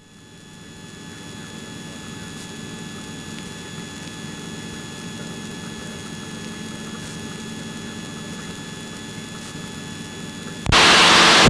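Helicopter cabin noise heard through the intercom: a steady drone with a few constant whining tones over it. Near the end a sudden loud burst of hiss cuts in for about a second.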